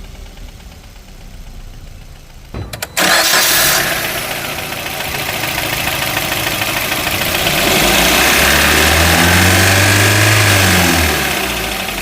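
Maruti Suzuki Brezza's four-cylinder petrol engine starting about three seconds in, then revved up, held high for a few seconds and let fall back near the end. It runs with an unwanted noise that the mechanic takes for a bent connecting rod, with the pistons knocking.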